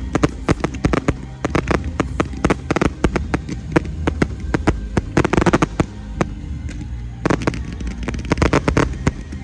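Fireworks going off in rapid succession: dense crackling and popping, thickest about five seconds in and again from about seven to nine seconds in.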